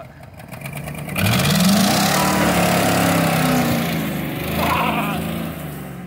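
Pickup truck engine revving up as the truck pulls away about a second in, its pitch rising steadily, under a loud rushing hiss that eases off near the end.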